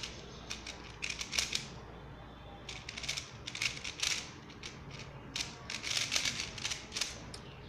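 X-Man Tornado 3x3 speed cube being turned in quick runs of moves, its plastic layers clicking and scraping in three bursts separated by brief pauses. The turning has a slight catching, bumpy feel inside rather than a perfectly smooth glide.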